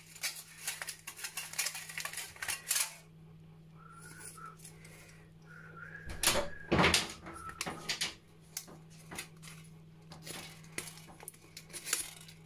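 Thin aluminium drinks-can petals crinkling and clicking as the layered metal flower is handled and a wire is threaded through two holes in its centre, with a louder knock a little past halfway.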